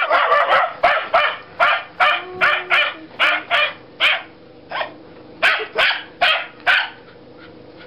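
Wire-haired fox terrier barking over and over in quick, sharp barks, stopping about seven seconds in.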